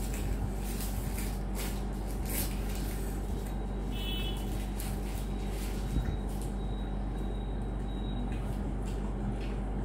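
Steady background hum and noise, with faint scattered crackles and crinkles from pani puri shells being cracked open and an egg roll's paper wrapper being peeled back.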